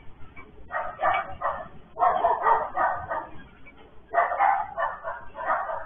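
Dog barking in three quick runs of several barks each.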